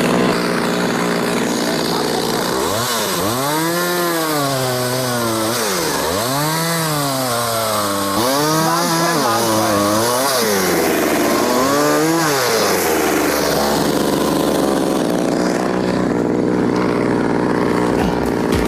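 Two-stroke chainsaw running, its engine speeding up and slowing down about five times, then running steadily through the second half as a small tree is sawn off.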